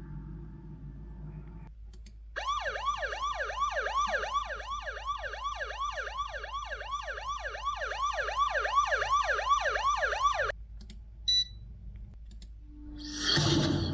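Siren-like alarm sounding in fast repeated falling wails, about three a second, for about eight seconds before it cuts off suddenly. Near the end come a short high beep and a brief whoosh.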